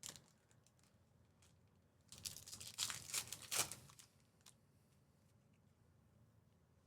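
A trading card pack wrapper being torn open and crinkled, a burst of crackly tearing lasting about two seconds, with a few small clicks before and after.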